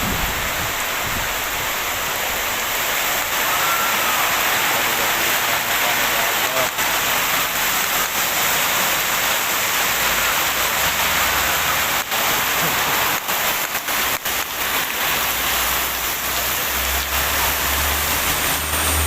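Heavy rain pouring down, a steady, dense hiss. A low rumble comes in near the end.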